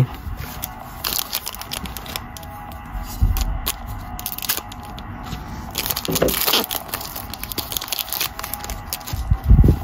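Trading cards and their foil pack wrappers being handled: crinkling and rustling in short irregular bursts, with a soft thump near the end.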